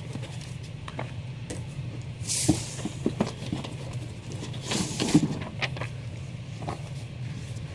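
Comic books and a cardboard shipping box being handled: rustling paper and cardboard with soft knocks, including two louder bursts of rustling about two and a half and five seconds in, over a steady low hum.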